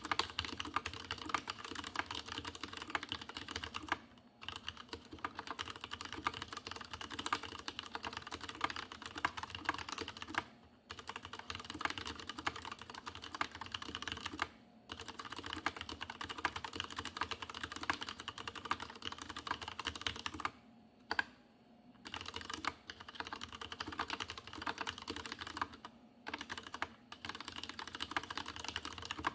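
Fast, continuous typing on a Leopold FC750R PS tenkeyless mechanical keyboard with unlubricated Cherry MX Red linear switches: a dense clatter of keystrokes with a noticeable hollow case resonance. The typing stops briefly about four, eleven, fifteen and twenty-one seconds in.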